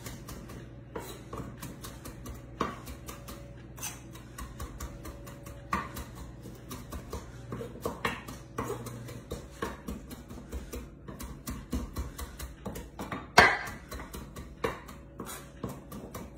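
Kitchen knife rough-chopping fresh basil on a wooden cutting board: a quick, uneven run of blade knocks on the board, one much louder knock near the end.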